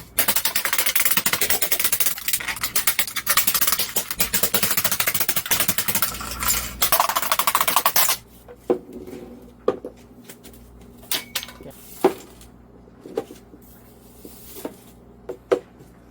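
Dense, rapid clattering and rustling of loose parts and debris being handled for about eight seconds, then a scattering of separate clicks and knocks.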